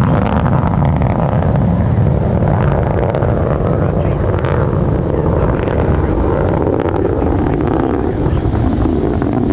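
Delta II rocket's launch rumble heard from a couple of miles away: a loud, steady deep rumble with a crackling edge.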